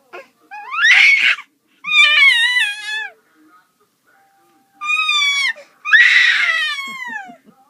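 A young child letting out four loud, high-pitched shrieks, each rising and then falling in pitch, the last one the longest.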